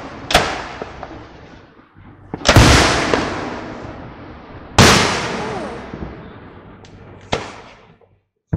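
Aerial fireworks going off: five sharp bangs, the loudest about two and a half and five seconds in, each trailing off in a long rolling echo.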